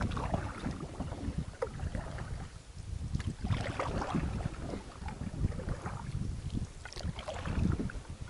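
Wind buffeting the microphone on a canoe's bow, with paddle strokes now and then dipping and splashing in the river water.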